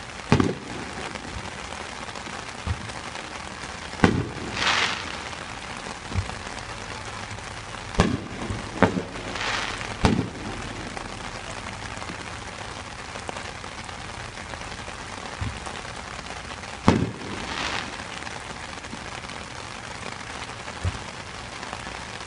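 Fireworks display: about six aerial shell bursts go off as sharp booms, several followed by a brief crackle, over a steady hiss of rain.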